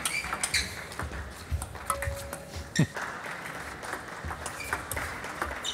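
Table tennis rally: the celluloid ball clicks sharply off the rubber bats and the table again and again, with one louder thump near the middle.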